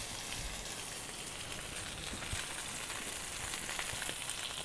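A thick New York strip steak sizzling in a smoking-hot Lodge cast iron pan: a steady hiss with faint scattered crackles.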